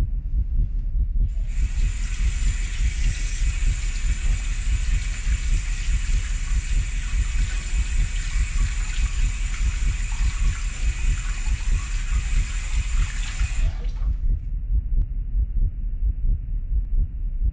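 Bathroom faucet running into a sink while hands are washed under it, starting about a second in and cutting off sharply near the end. A low rumbling drone sits underneath.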